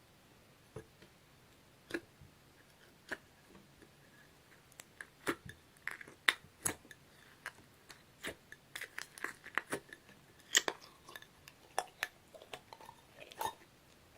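Heart sponge slime (slime mixed with sponge pieces) being squeezed and pressed by hand, giving sharp sticky clicks and pops. A few scattered ones at first, then quick clusters from about five seconds in.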